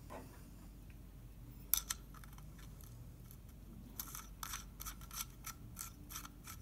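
Small steel M8 nuts clicking against the threaded studs of a bearing housing as they are put on and turned by hand: two clicks a little under two seconds in, then a run of light, irregular metallic clicks over the last two and a half seconds.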